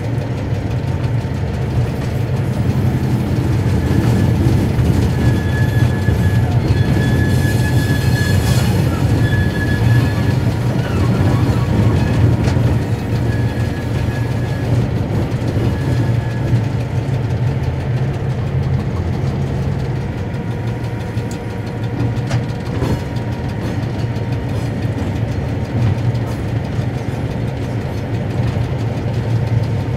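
Cab of the ex-CIE A class diesel locomotive A39 running light, its General Motors diesel engine droning steadily. A thin high wheel squeal comes and goes between about 4 and 17 seconds in as the locomotive takes the curving track through the pointwork, with a few clicks from the wheels over rail joints.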